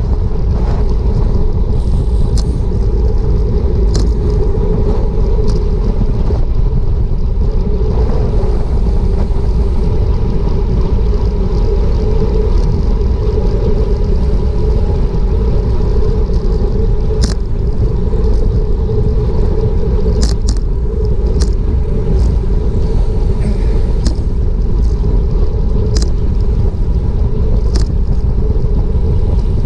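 Wind buffeting the microphone of a bike-mounted action camera at racing speed, about 25 mph, over the steady rolling noise of the bicycle on asphalt. Sharp clicks come now and then, about a dozen in all.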